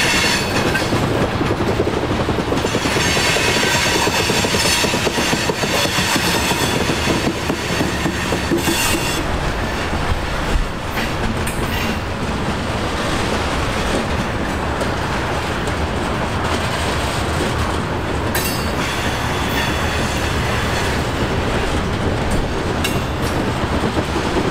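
Freight train cars rolling past, a steady heavy rumble of steel wheels clicking over the rail joints, with a high wheel squeal in the first few seconds.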